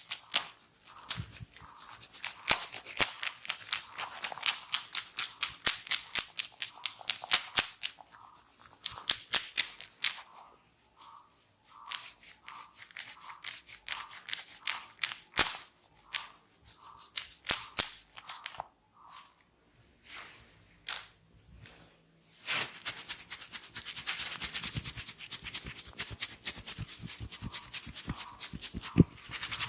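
Head massage: hands working on a person's hair and scalp, making rapid sharp crackling clicks. About three-quarters through, these give way to a steady, dense scratchy rubbing of hands against the hair.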